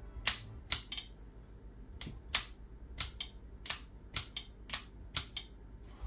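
Parkside cordless multitool giving a series of about nine sharp clicks, irregularly spaced, at times two a second. The motor clicks as if it wants to start but won't run, which the owner puts down to a faulty motor controller.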